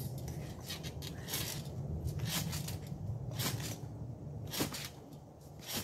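Stunt scooter bouncing on a trampoline: a scattered series of short knocks and rattles as the scooter and rider land on the mat, over a steady low rumble.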